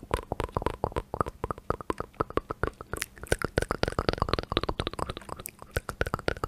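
Rapid, close-miked clicking and tapping of backlit keyboard keys, many strokes a second, mixed with wet mouth sounds.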